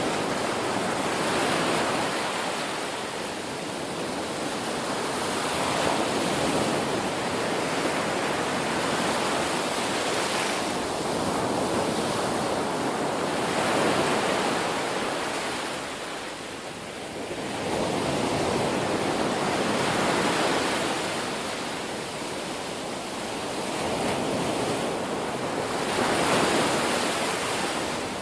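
Ocean waves breaking and washing on a shore, a continuous surf noise that swells and ebbs every few seconds.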